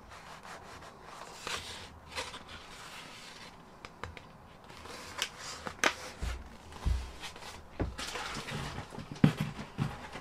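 Handling noise from a foam RC model jet being turned over in the hands and set down. There are scattered light clicks and knocks, a few low thumps in the middle, a sharper knock near the end and some rustling.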